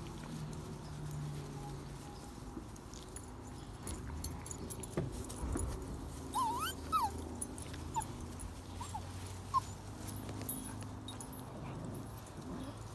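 Irish setter puppies whimpering and yipping: a quick cluster of short high rising-and-falling cries about six seconds in, then a few single yelps, over a steady low hum.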